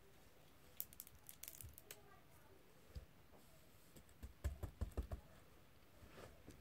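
Putty with sprinkles mixed in being squeezed and pressed by hand, giving quiet crackles and clicks: a light cluster about a second in and a louder run of clicks around four and a half seconds in.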